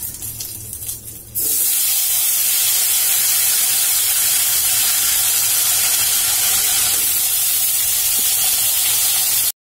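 Raw potato wedges hitting hot oil in a wok: a faint crackle of the cumin and bay leaf tempering, then about a second and a half in a sudden loud, steady sizzling hiss as the wet potatoes fry. It cuts off abruptly near the end.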